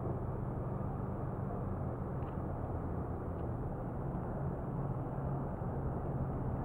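Steady low rumble of motor vehicles running, with no distinct events standing out.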